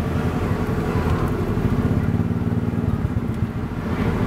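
A steady low motor-like rumble dominates throughout, over the fainter sizzle of sempolan skewers deep-frying in a pan of bubbling oil.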